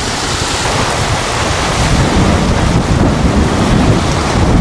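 Loud, gusty wind buffeting the microphone, with small waves breaking on a sandy shore beneath it.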